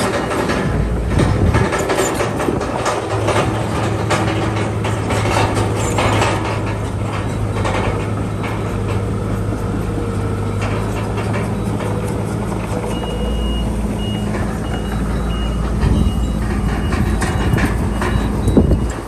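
Heavy diesel earthmoving machinery, a bulldozer, running steadily with metallic clanking and rattling from its tracks and blade. From about two-thirds of the way in, a reversing alarm beeps repeatedly.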